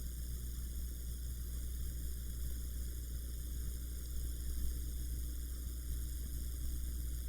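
Steady low electrical hum with a faint hiss, unchanging throughout.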